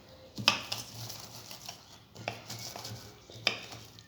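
Whole cloves being crushed by hand: a few sharp knocks and scraping grinds of a hard utensil against crockery, the loudest about half a second in and another at about three and a half seconds.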